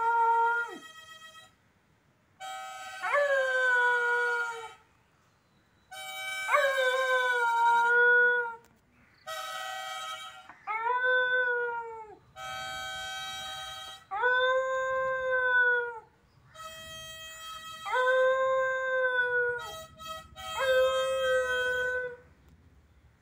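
A harmonica (mouth organ) played in short phrases while a dog howls along, about six long howls, each rising quickly at the start, then sliding down and holding.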